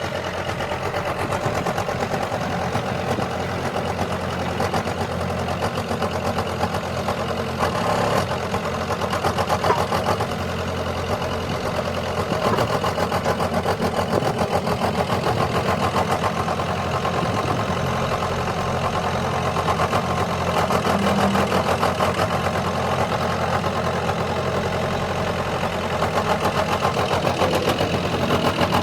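Backhoe digger's diesel engine running steadily, with small rises and falls in level as it works.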